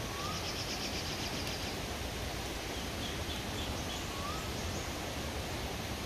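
Birds calling outdoors: a fast high trill over the first second and a half, a few short high notes around three seconds in, and two short rising whistles about four seconds apart, all over a steady rushing background hiss.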